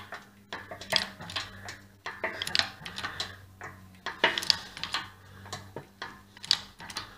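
Light metallic clicks and ticks, irregular at roughly one or two a second, from a 20-tonne hydraulic press being worked while its ram loads a drilled-out, rusted axle shaft in its hub. A steady low hum runs underneath.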